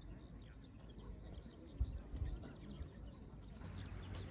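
Outdoor garden ambience: scattered faint bird chirps over a steady low background rumble, with a couple of low thumps about two seconds in.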